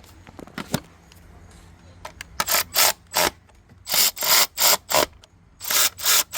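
A hand ratchet worked in short back-and-forth strokes while tightening fasteners, in three runs of several strokes each starting a little over two seconds in.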